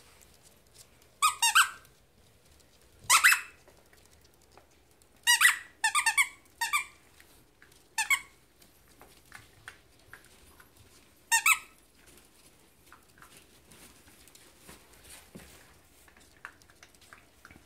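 Pocket beagle puppies at play: about seven short, sharp, high-pitched squeaks, several in quick succession in the middle and one more later, over faint patter of paws on the floor.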